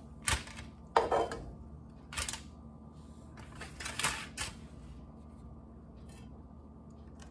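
Metal tongs clacking and scraping against a nonstick frying pan as cooked chicken strips are lifted out: a few separate knocks in the first four and a half seconds, then only a faint steady hum.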